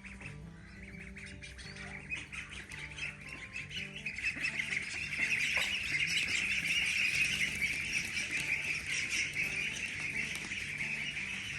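Poultry squawking and chirping in a dense chorus that grows louder about four seconds in, over soft background music with repeating low notes.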